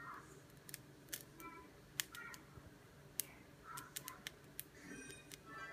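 Faint, irregular sharp crackles and pops from prickly pear cactus spines burning off over a gas burner flame.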